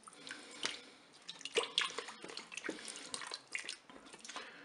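A spoon stirring duck legs and vegetables through a thin red wine broth in a multicooker's pot: wet sloshing and dripping, with irregular light clicks of the spoon.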